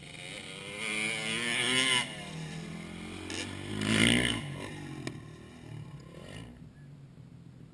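Motocross bike engine revving hard on the run-up to a jump ramp: two rising revs, the first cut off sharply about two seconds in, the second loudest about four seconds in. The pitch then falls away and fades as the bike leaves the ramp and flies.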